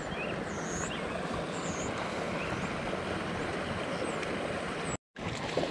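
Steady wind noise rushing over a GoPro's microphone, with a few faint high chirps; the sound cuts out completely for a moment near the end.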